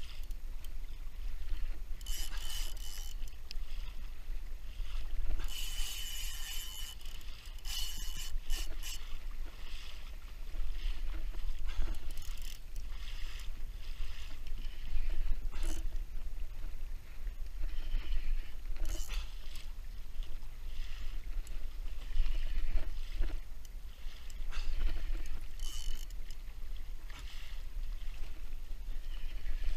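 Water rushing and splashing along a plastic sit-on-top kayak's hull, with spray hissing off the bow in repeated surges, as a hooked marlin tows the kayak; wind rumbles steadily on the microphone. A brief high whine sounds a few times in the first third and once near the end.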